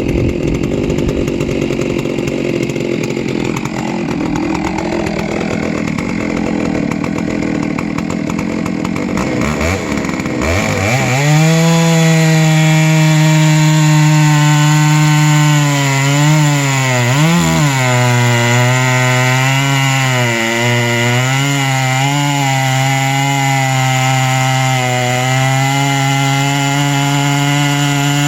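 Chainsaw mill ripping a plank off a log, the saw running under load. About ten seconds in, the engine pitch rises and settles into a steady drone, which dips briefly a few times later on.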